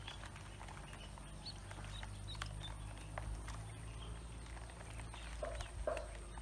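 Ducklings peeping in short high chirps while their bills click and tap on a plastic feed basin. Two short, lower calls come near the end, over a low steady hum.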